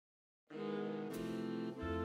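Background music starting about half a second in: held chords that change twice, with bass notes coming in underneath.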